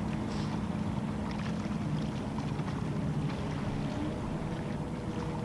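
Distant boat engine droning steadily across the water, under an even background hiss.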